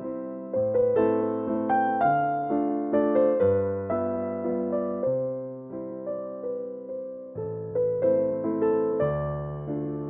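Background music: a piano-type keyboard playing chords and a melody, its notes struck and fading, over a bass line that changes every second or two.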